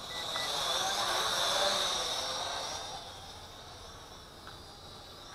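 ZC Toys Z1 quadcopter's motors and propellers whining in flight, growing louder about a second in as it comes near, then fading again by about three seconds.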